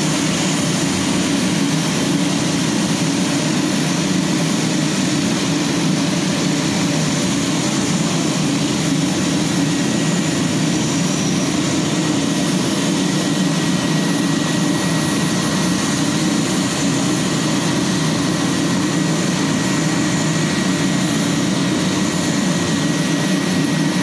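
De Havilland Twin Otter's Pratt & Whitney PT6A-27 turboprop engines running steadily. A constant low propeller drone carries a thin steady whine on top.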